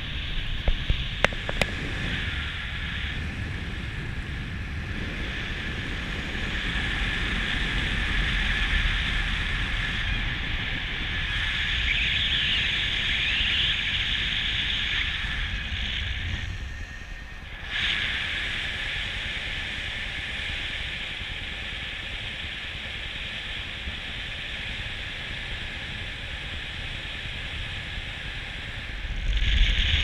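Wind rushing over the camera's microphone in paraglider flight, a steady rough buffeting with a brief lull about seventeen seconds in.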